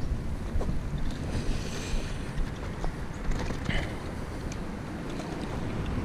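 Wind buffeting a body-worn camera's microphone: a steady low rumble, with a few faint ticks and rustles from hands and clothing.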